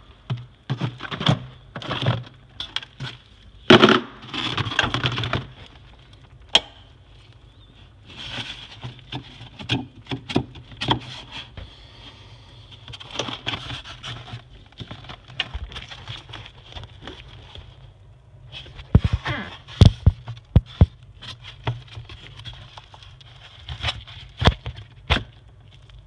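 Pliers and hands working a plastic fridge panel loose: irregular clicks, knocks and rattles of plastic and metal, the loudest about four seconds in and again near twenty seconds. Beneath them runs a steady low hum and a faint high whine.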